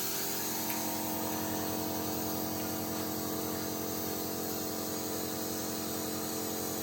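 Omron NE-C900N compressor nebulizer running: a steady, even machine hum from its air compressor, with a hiss of air above it.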